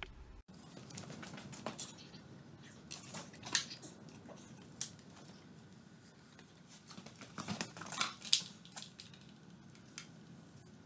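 Scattered clicks, taps and short rustles of hands handling wiring and parts on a small quad bike, with a louder cluster of clicks about eight seconds in.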